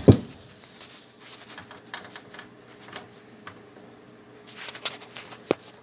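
Handling of a caster wheel being fitted by hand to a wooden table leg: a sharp knock at the start, then scattered light clicks and rattles as the wheel is turned and screwed on, with another sharp knock near the end.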